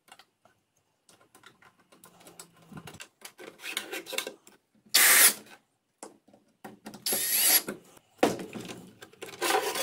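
Hand assembly of a router table's metal anti-kickback guard plate and bracket with their wing-nut fasteners: scattered clicks and knocks of metal parts, a short loud clatter about five seconds in, then scraping and rubbing.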